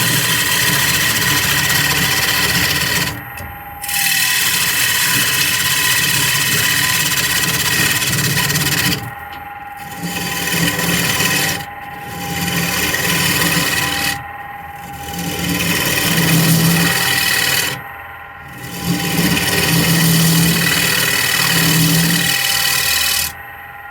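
Lathe tool cutting into a spinning mahogany bowl blank while the inside is hollowed out, a loud rough shearing noise in passes of a few seconds, broken by short pauses about six times. The lathe's steady hum carries on through the pauses.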